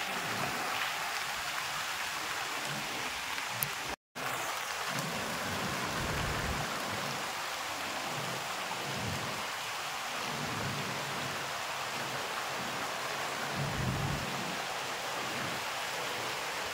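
Steady rushing noise of falling water, with irregular low rumbling swells and a brief dropout about four seconds in.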